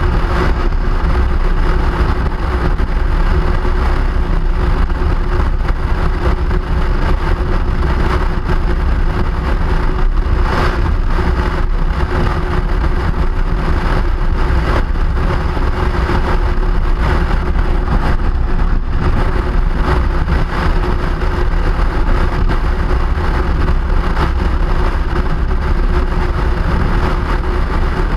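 Steady noise of a vehicle on the move: a low rumble with an even hiss over it and a steady hum.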